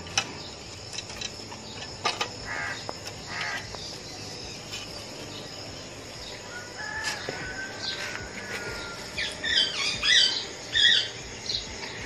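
Blue-and-gold macaw calling: a few short calls two to three seconds in, then a cluster of louder short calls around ten seconds in.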